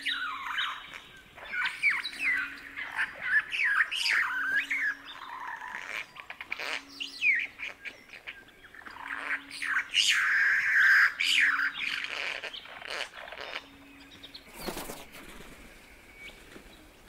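Satin bowerbird giving a run of squeaks, squelches and short whistles: quick, gliding, chattering notes, with a louder dense patch about ten seconds in. The calls thin out, and a short noisy rush comes near the end.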